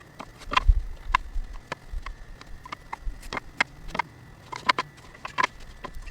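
Milled 2x4 boards being handled and laid out, knocking and clacking against each other and the work surface in a run of irregular light knocks.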